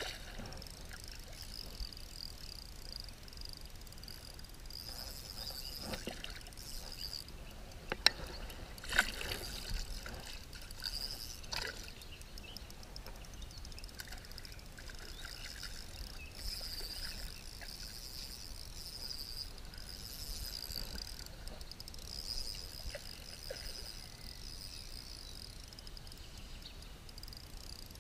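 River water running and trickling over a shallow riffle, with a steady, wavering high-pitched chirring above it. Two sharp clicks stand out about eight and nine seconds in.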